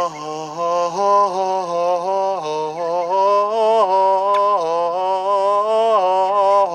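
A man's voice chanting in long held notes, stepping up and down between a few pitches, in a meditation-style chant.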